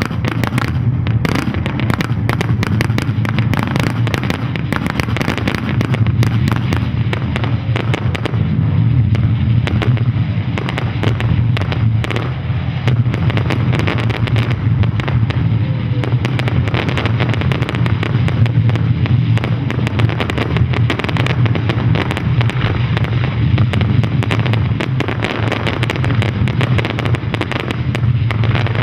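Aerial fireworks display: a continuous barrage of bangs and crackling from bursting shells over a steady low rumble.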